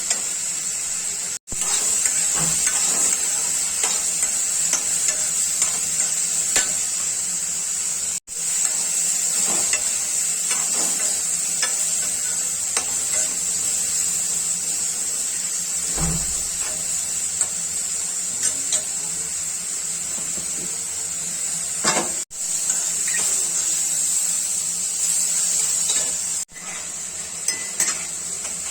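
Mushroom masala sizzling as it fries in a pan, stirred with a spoon that scrapes and clinks against the pan. The sound cuts out briefly four times.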